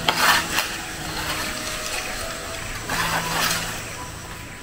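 Leaves and branches of a tarap tree rustling in two short bursts, about three seconds apart, over faint background music.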